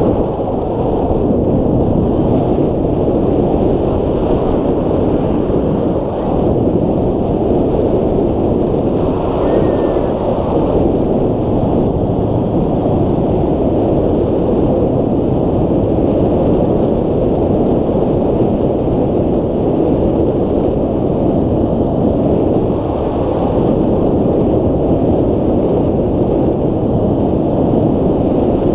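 Airflow rushing over the microphone of a camera mounted on a hang glider's wing in flight: steady, loud wind noise.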